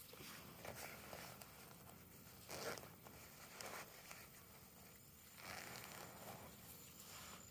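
Faint, scattered rustling and scraping noises, a few short bursts with the loudest about two and a half seconds in and a longer stretch about five and a half seconds in.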